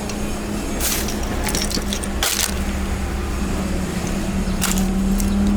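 Workshop handling sounds: several sharp crunching clicks over a steady low hum.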